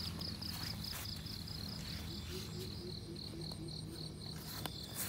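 Insects chirping in a high-pitched pulse, about five pulses a second, over a steady low hum, with a few faint clicks.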